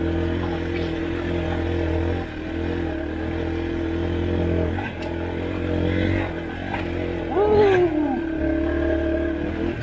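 Yamaha dirt bike engine running steadily under way, with a quick rev up and back down about seven and a half seconds in.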